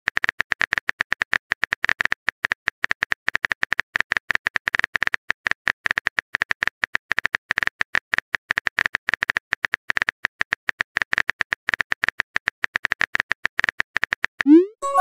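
Simulated phone-keyboard typing sound from a texting-story app: a fast, even run of light ticks, one per letter typed. Near the end a short rising swoosh marks the message being sent.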